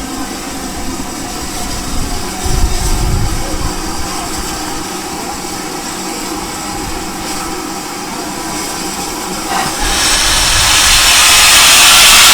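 A steam locomotive, LNER Thompson B1 No. 61306 Mayflower, running with a steady rumble. From about ten seconds in, a loud hiss of escaping steam starts and keeps building.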